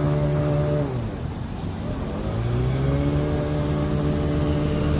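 Motorcycle engine passing close through floodwater, its pitch dropping as it goes by about a second in; then another motorcycle approaching, its engine note rising and holding steady, over a steady hiss.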